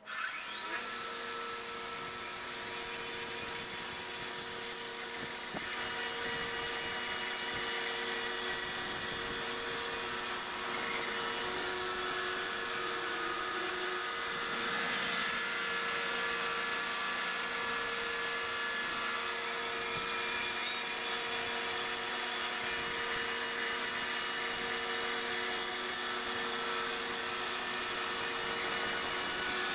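6-foot-wide bandsaw mill running steadily as its band blade cuts a slab lengthwise through a willow log: a constant drone with a few held whining tones over it.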